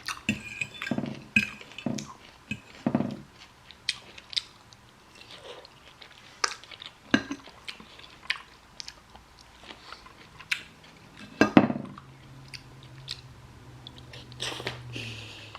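A person chewing food close to the microphone, with irregular sharp crunches and mouth clicks, while eating jjajangmyeon (Korean black bean noodles).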